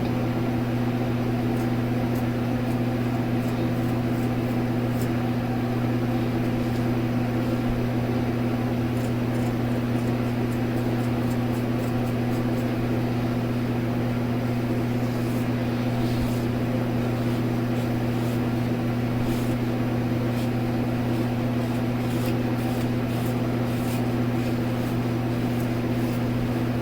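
Steady low machine hum: a deep tone with a second tone an octave above it, at an even level.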